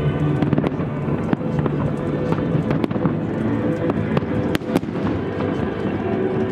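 Aerial fireworks bursting: a rapid, irregular string of bangs and crackles, with two louder bangs about four and a half seconds in, over music playing throughout.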